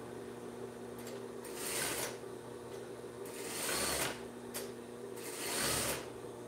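Juki industrial sewing machine stitching in three short runs, each under a second, as sheer tricot is fed through a rolled-hem foot, with a faint steady hum between the runs.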